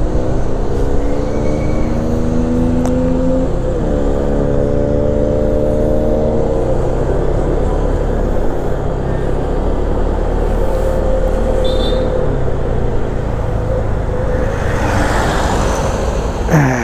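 Honda ADV150 scooter's single-cylinder engine accelerating: its pitch climbs for about three and a half seconds, dips briefly, climbs again and then levels off into steady running under constant road and wind noise.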